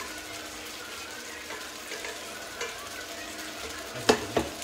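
Steady sizzling hiss of cooking on the stove with a few faint clinks, then near the end two loud, ringing metal clanks as a stainless steel pot is set down on the ceramic hob.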